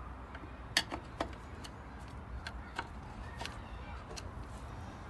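Screwdriver working the mounting screws of a Briggs & Stratton carburetor into its fuel tank: sharp metal clicks and taps at irregular intervals, about one or two a second, over a steady low rumble.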